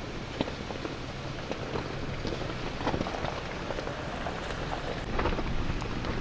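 Off-road vehicle crawling slowly over a gravel and rock trail: tyres crunching and popping loose stones in irregular crackles over a low steady rumble, a little louder about five seconds in.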